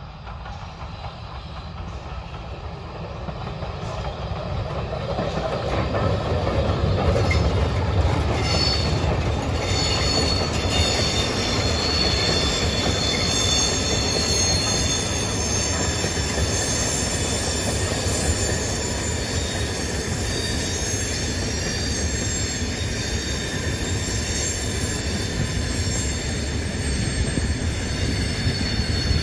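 Passenger train of Pullman coaches hauled by an LMS Black Five steam locomotive passing close by. Its rumble grows over the first several seconds and then holds steady, with a high-pitched wheel squeal as the coaches roll past.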